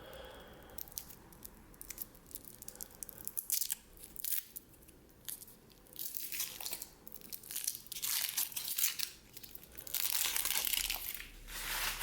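Thin crinkly wrapping, such as a Kinder Surprise egg's foil, being torn and crumpled by hand in repeated crackly bursts that grow longer and louder after the first few seconds.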